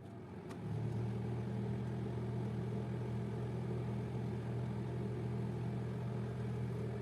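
Steady low hum with a faint even hiss, rising slightly about half a second in.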